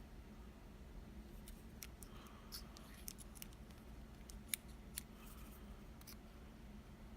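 Faint scattered clicks and taps of small metal lock parts, the lock's core and pins, being handled on a bench, with two sharper clicks about four and a half and five seconds in.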